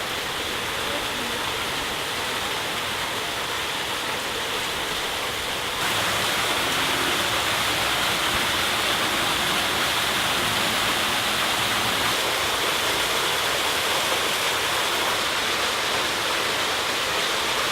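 Steady rush of falling water, an even splashing hiss that steps up louder about six seconds in.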